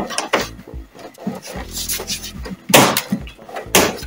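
Plastic housing of a Kyocera multifunction printer's scanner and control-panel unit being handled and pressed back into its seat, giving a run of clunks and clicks. The two loudest knocks come about three-quarters of the way through and near the end.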